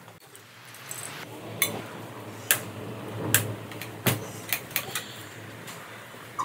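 Handling noise close to the microphone: a string of sharp clicks and light knocks, roughly one every half second to second, as a cup is picked up and handled.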